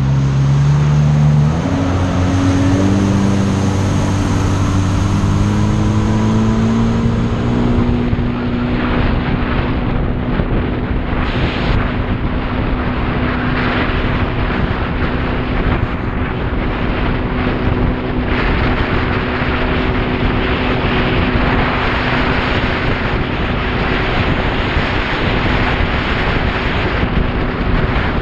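Personal watercraft engine running under way, rising in pitch over the first few seconds as the jet ski speeds up, then holding a steady cruising note. Wind buffets the microphone throughout.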